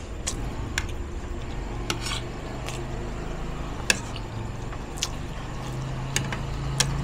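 Spoon and fork clinking and scraping against a ceramic plate while eating, with sharp irregular clinks about once a second over a low steady hum.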